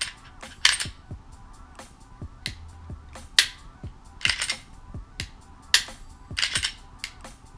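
Background music with a steady beat of sharp, snapping percussion hits, a little under one a second.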